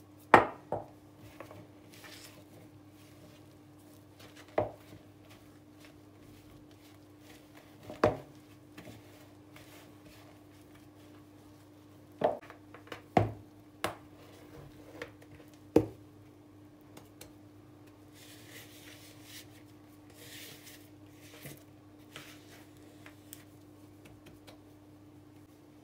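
Kitchen utensils and bowls knocking as flour is mixed into a butter-and-egg biscotti dough in a plastic bowl: a few sharp knocks spaced several seconds apart, the loudest at the very start. Softer scraping follows near the end as the dough is tipped out and scraped onto a granite countertop. A steady low hum runs underneath.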